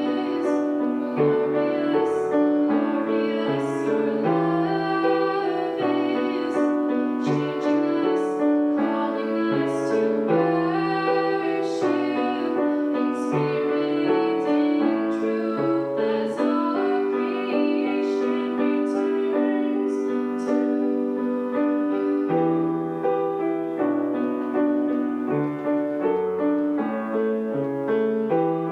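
Piano playing a worship song: held chords under a melody, changing every second or so.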